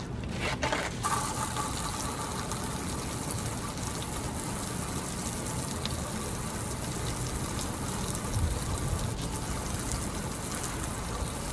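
Water jet from a garden hose hissing and splashing steadily onto the buckets of a spinning 3D-printed Pelton wheel. The rush grows fuller about a second in.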